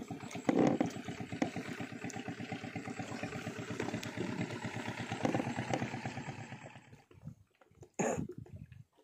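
Small inboard engine of a wooden fishing boat running steadily with a rapid, even chugging beat while the boat moves along, fading away about seven seconds in.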